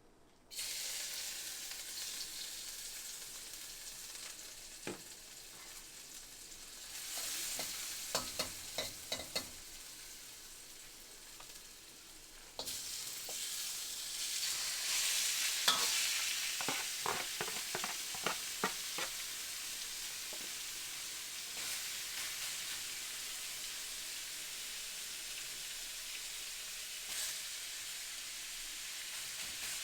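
Food sizzling as it fries in hot oil in a pan, the hiss starting suddenly just after the start and jumping louder again about 13 seconds in as more goes into the pan. A spatula clacks against the pan in quick runs of strokes while the food is stirred.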